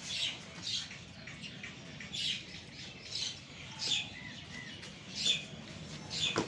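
Small birds chirping in short, repeated calls about once a second, over a low, steady background noise. A single sharp knock comes near the end.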